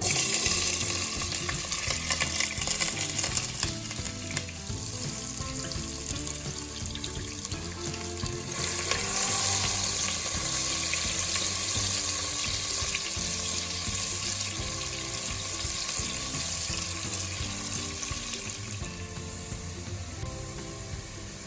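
Food frying in hot oil in a cooking pot, a steady sizzle that starts abruptly and swells again partway through, with stirring.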